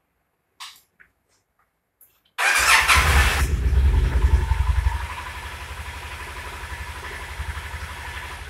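A click about half a second in, then a Yamaha TDM 850's parallel-twin engine starts about two and a half seconds in. It runs loudly for a couple of seconds, then settles to a lower, steady idle. The owner says the engine sneezes back through its carburettor.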